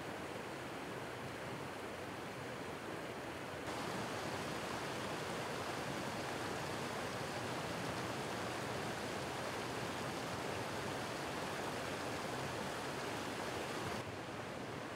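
Water from a broken water main welling up through the street surface and running across the flooded pavement: a steady rushing, bubbling noise. It gets louder a few seconds in and drops back near the end.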